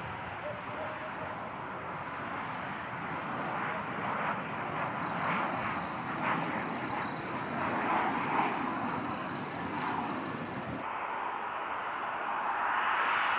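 Boeing 737-800 on final approach, its CFM56-7B jet engines giving a broad, rushing noise that swells through the middle. Near the end the sound changes abruptly to a steadier, thinner hiss.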